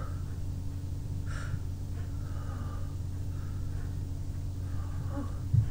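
A person breathing and sniffling through a tickling, irritated nose between bouts of sneezing, over a steady low hum. A short louder sound comes near the end.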